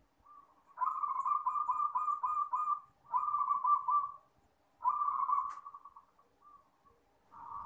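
Zebra dove (perkutut) cooing: three long rolling phrases of quick pulsed notes, with a fourth phrase starting near the end.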